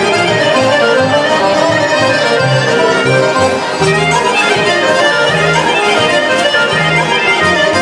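Live band playing Macedonian folk dance music, led by accordion over a steady, pulsing bass line.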